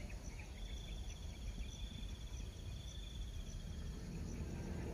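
An insect, likely a cricket, trilling in a rapid, even pulse that stops near the end, over a steady low rumble.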